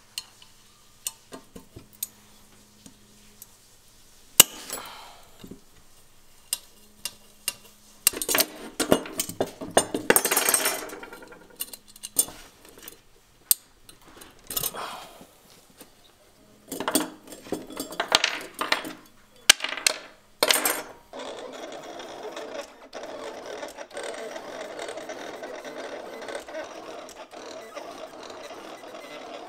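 Light metal clicks and clinks as chainring bolts are worked loose from a Shimano Deore LX crankset with a hex key, broken by several louder stretches of scraping. For the last several seconds a steady mechanical whirr takes over, fitting a Silhouette Cameo vinyl cutter running.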